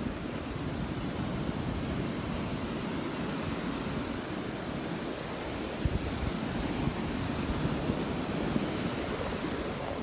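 Surf washing onto the beach in a steady wash of noise, with wind rumbling on the microphone and a couple of brief bumps near the middle and end.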